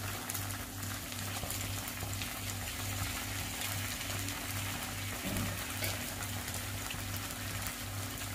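Thin rava dosa batter sizzling in a hot nonstick pan, a steady fine crackle. Soft background music with a low pulse about twice a second plays under it.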